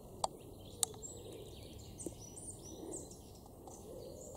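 Faint outdoor background with small birds chirping here and there. Two short clicks about half a second apart near the start are the loudest sounds.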